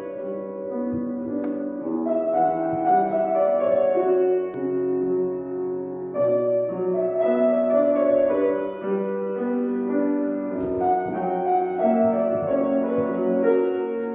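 Instrumental music played on a keyboard instrument: a slow, lyrical melody moving over held chords and bass notes.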